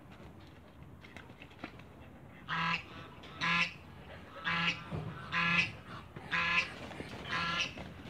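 Domestic geese honking: a run of about six loud honks roughly a second apart, starting a couple of seconds in.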